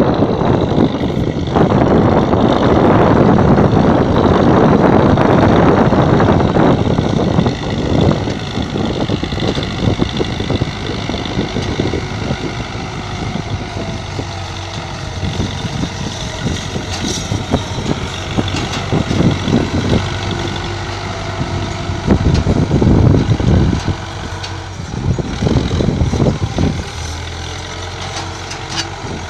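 Belarus 510 tractor's four-cylinder diesel engine running steadily under load as it drags an 18-disc harrow through ploughed soil. Wind buffets the microphone over the first several seconds, and the engine swells louder a few times near the end.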